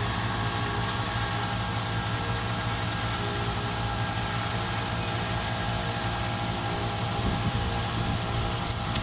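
Massey Ferguson 7715 S tractor's six-cylinder diesel engine running steadily as it pulls an Abbey tanker sprayer across a field.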